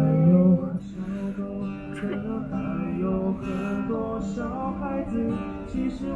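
Acoustic guitar music, strummed chords.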